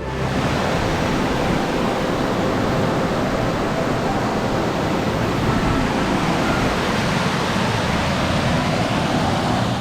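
Waterfall of about 50 metres, its water pouring down in a steady, even rush.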